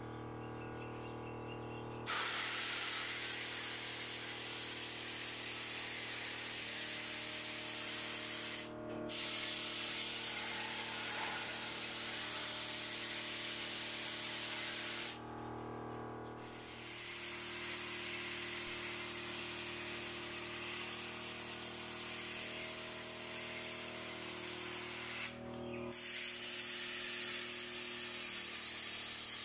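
Paint spray gun fed by compressed air hissing as it sprays paint onto a wall, in long bursts of several seconds each with three short pauses between them.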